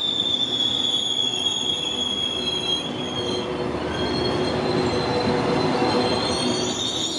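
Passenger coaches of an express train rolling past on a curve: steel wheels squealing against the rails in a high, steady tone over the rumble of wheels on track. The squeal steps slightly higher about halfway through.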